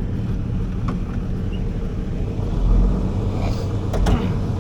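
1985 International Eagle semi truck's diesel engine running steadily under way, heard from inside the cab, with a few light cab rattles and clicks.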